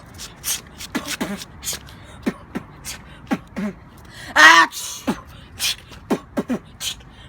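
Beatboxing made from sneeze sounds: a quick run of sharp percussive mouth clicks and puffs, with one loud voiced call about four and a half seconds in.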